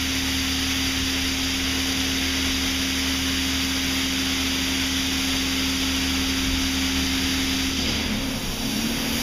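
Belanger Saber SL2 in-bay automatic car wash running: a steady hiss of high-pressure water jets spraying the car over a steady machine hum, which wavers in pitch near the end.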